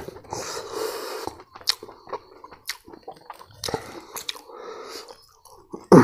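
A man chewing and crunching a mouthful of fried silkworm pupae and rice, with short wet clicks and squishes as his fingers work the rice and curry on the plate. A sharp, loud smack comes just before the end.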